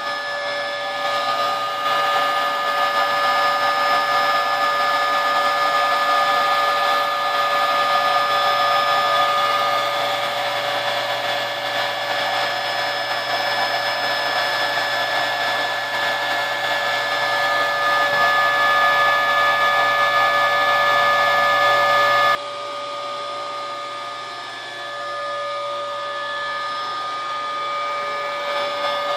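Router spindle on a homebuilt CNC machine running steadily while it raster-carves a wooden sign, a continuous motor whine with several steady tones. About three-quarters of the way through, the level drops suddenly and the whine changes slightly.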